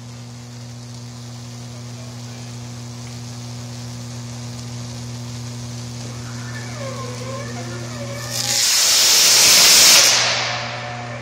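Steady electrical hum of an energised high-voltage substation. A loud hiss rises from about eight and a half seconds in and fades after ten seconds as the vertical-break isolator's blades swing open.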